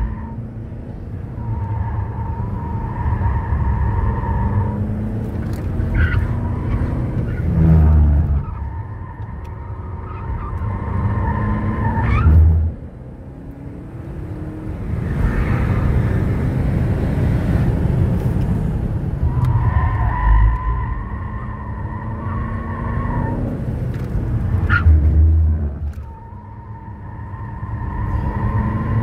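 Turbodiesel (TDI) car driven hard on a track, heard from inside the cabin: the engine pulls with rising pitch, then drops off sharply twice as the driver lifts or shifts. Through the corners the tyres keep up a steady squeal, which drops out on the straight in the middle.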